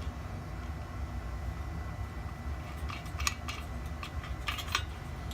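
A few light metallic clinks of a nut, washer and bolt being fitted to a steel weight plate rack, over a steady low hum.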